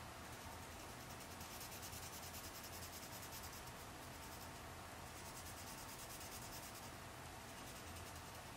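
Graphite pencil scribbling on paper, a faint steady rubbing as it shades over a printed image to lay down graphite for a transfer.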